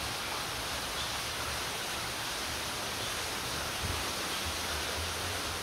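Heavy rain pouring down, with water streaming off the roof edge: a steady rushing hiss.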